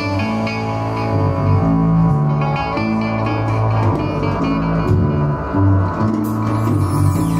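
Amplified mandola picked in a flowing melodic line in a psychedelic rock piece, over long, held low bass notes that change pitch every second or so.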